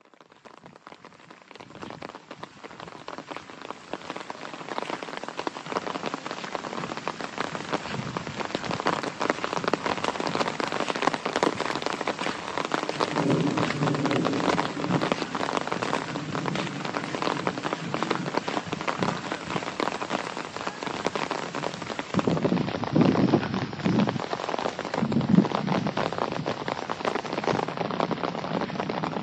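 Rain falling steadily as a dense stream of drop hits, building up over the first few seconds and then holding. Low rumbles swell a few times in the second half.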